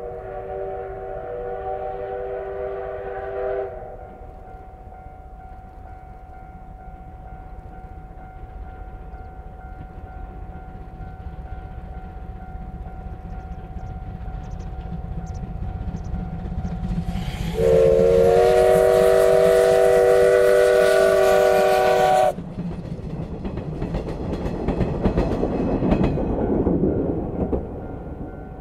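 C12 steam locomotive's whistle sounding twice: a held blast that cuts off about four seconds in, then a louder, longer blast of about five seconds two-thirds of the way through. The train's running rumble and wheel clatter build under the whistles, peak just after the second blast, and fade near the end as the train passes.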